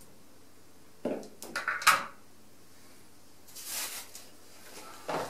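Small electric-bike kit parts being handled and set down on a cardboard box: a quick run of clicks and clatter about a second in, then a soft rustle of plastic packaging near the middle.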